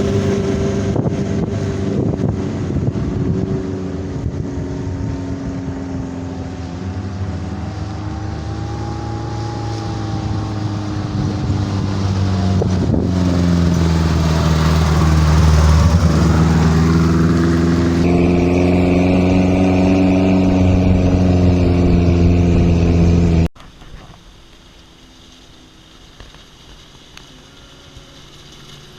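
Off-road vehicle engine running hard, its pitch rising and falling as the throttle is worked, then cutting off abruptly about 23 seconds in, leaving a much quieter background.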